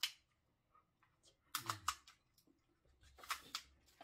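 Kitchen scissors cutting through the shell of a steamed king crab: a sharp snip at the start, then two short runs of crunchy snips and cracks, one in the middle and one near the end.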